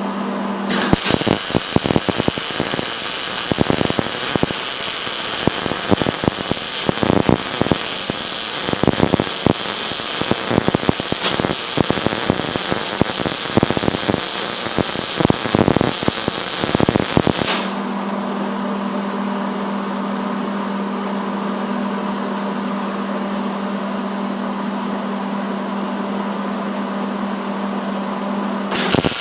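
MIG welding arc crackling and sizzling on steel tubing as a weave bead is laid in a C-shape pattern. It cuts off abruptly after about 17 seconds, leaving a steady low hum, and a second bead starts crackling just before the end.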